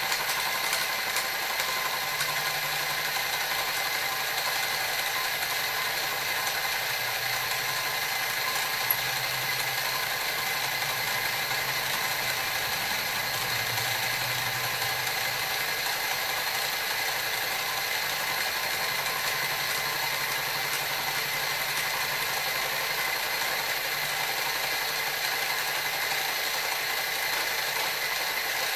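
Grizzly mini mill running steadily, spinning a flycutter held in a 3D-printed PLA MT3 collet during a facing pass on aluminum, with a steady whine of several high tones and one small click about nine seconds in. The collet is slipping, letting the cutter pull up deeper into the spindle.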